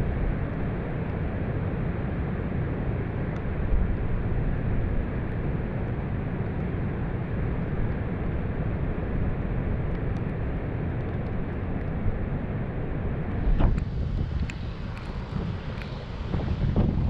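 Strong wind buffeting the microphone over the steady roar of heavy storm surf, with a brief louder gust-like swell about three-quarters of the way through.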